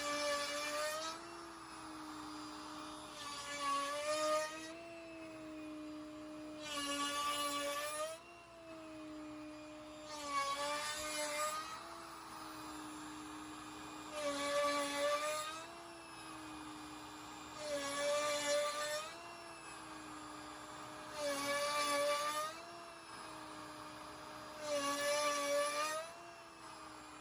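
CNC router spindle running with a steady whine while a 7/8-inch box cove bit carves divots into red oak veneered hardwood plywood: about every three and a half seconds a louder cutting burst of a second or so, the whine dipping slightly in pitch under the load of each cut.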